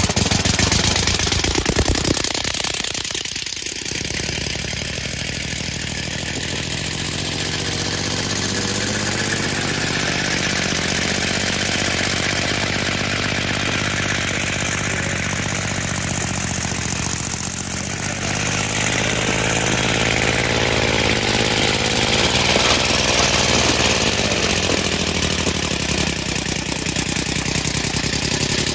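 Homemade three-cylinder compressed-air engine running under load as it drives a converted riding mower. A loud hiss of escaping air sits over a pulsing engine note that rises and falls in pitch with speed.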